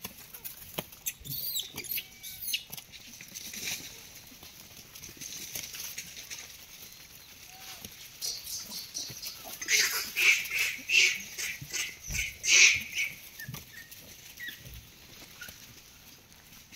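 Rhesus macaque giving a quick run of short, high-pitched squeals for about three seconds, starting about ten seconds in. Faint clicks and rustling come before it.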